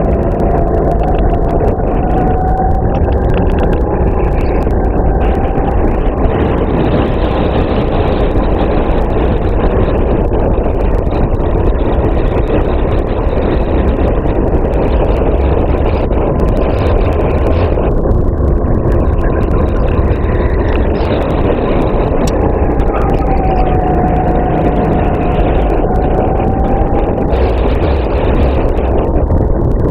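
Racing kart engine running hard on track, heard close up from onboard with wind noise on the microphone. Its note falls and climbs back twice, near the start and again about two thirds of the way through, as the kart slows for corners and accelerates out.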